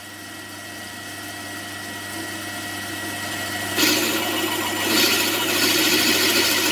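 Drilling machine running with a 5/16 in twist drill cutting into a cast iron valve chest: a steady motor hum and whine, getting louder, with a rougher, louder cutting noise from about four seconds in as the bit bites deeper into the iron.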